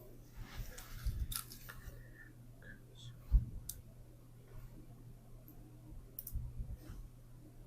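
Quiet handling noises: scattered soft rustles and clicks, with one low bump a little over three seconds in, over a steady low hum.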